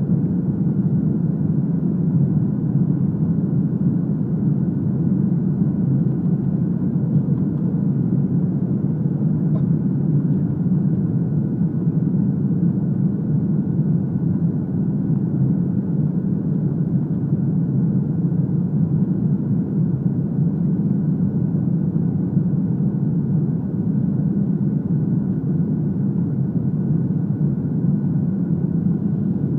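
Steady cabin noise inside a Boeing 737-300 descending on approach: a low, even rumble of its CFM56 turbofan engines and the airflow past the fuselage.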